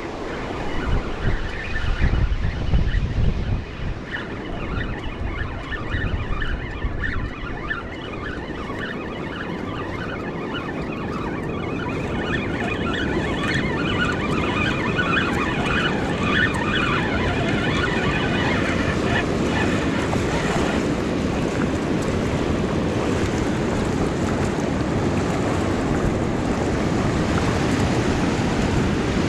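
Surf washing and wind buffeting the microphone, with a fishing reel being cranked steadily through the middle stretch as it hauls in a heavy crab snare. The strain on the reel is a sign that a crab is on the snare.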